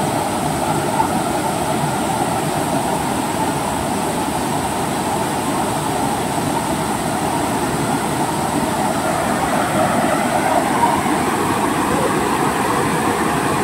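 Steady rushing of a river running over rapids, an even, unbroken wash of water noise.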